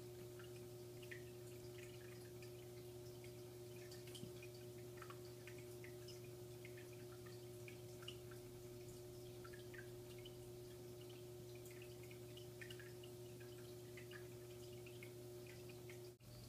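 Faint steady hum from aquarium equipment, with scattered soft water drips. The hum breaks off briefly near the end.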